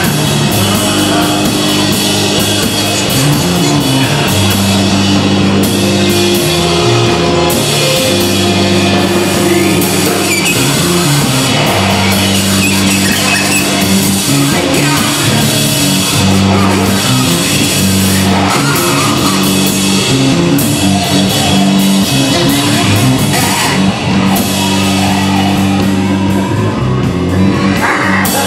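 Live improvised experimental rock jam of drums, electric bass, guitar and electronic loops, with the bass holding long low notes that change every few seconds under a dense, noisy layered texture.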